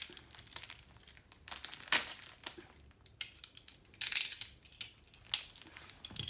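Lego set packaging crinkling and tearing in several short bursts as it is opened, loudest about two seconds in and again about four seconds in.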